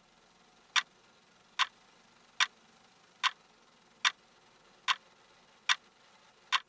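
Clock ticking: single sharp ticks, evenly spaced a little under a second apart, starting about a second in, over a faint steady hiss.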